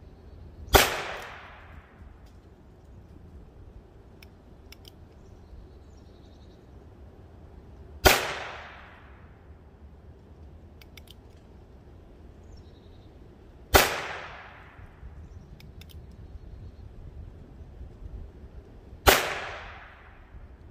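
Four suppressed shots from a Heritage Rough Rider .22 LR single-action revolver with a Tactical Solutions Aeris suppressor and subsonic ammunition, several seconds apart, each a sharp crack with a short echoing tail. The report is a little louder than expected for a suppressor, since gas escapes at the revolver's cylinder gap. Faint clicks come between the shots.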